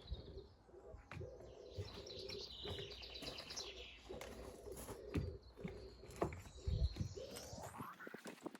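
Faint birdsong: a pigeon cooing in repeated phrases and a small bird's quick high trill, with scattered knocks that are loudest past the middle.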